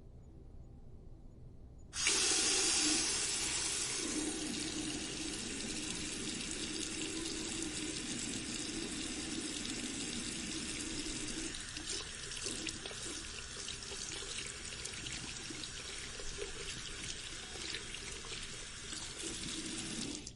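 Water from a tap running into a sink: the tap is turned on about two seconds in, runs steadily, and is shut off at the end.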